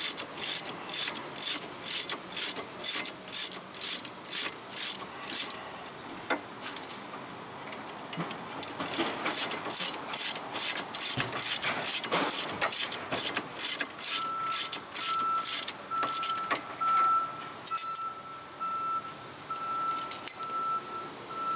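Ratchet wrench clicking about three times a second as the rear caliper bracket bolts are backed out. It comes in two runs with a few seconds' pause between them. About two-thirds of the way through, a high tone starts sounding in short pulses in the background.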